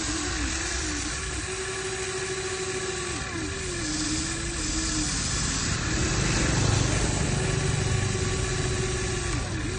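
Small electric gear motors of an RC excavator whining, rising in pitch as they start, holding, then dropping back as they stop, several times over. A deeper rumble swells in about six seconds in and fades near the end.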